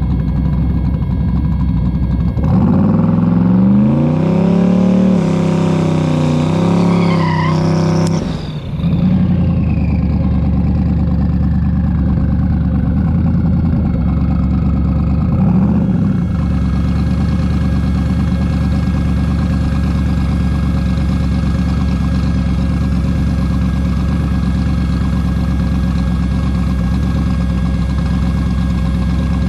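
Drag car's engine idling, then revving up and held high for about six seconds, as in a burnout on its rear drag slicks, before dropping back sharply to idle. A whine winds down over the next few seconds, there is one short blip of the throttle, and then the engine idles steadily.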